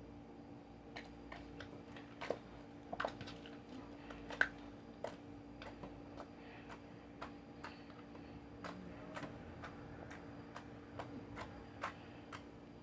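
Slime being pressed and worked by hand, giving off many small, sharp, irregular crackling clicks, the loudest about four and a half seconds in.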